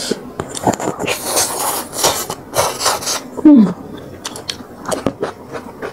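Close-miked chewing of crunchy food, a run of rasping crunches in the first three seconds, then softer chewing clicks.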